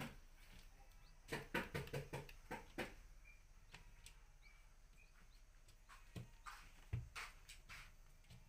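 Golden pheasant chicks pecking and stepping on a newspaper-lined brooder floor: scattered light taps in two flurries, one about a second in and one around seven seconds, with a couple of faint short peeps between them.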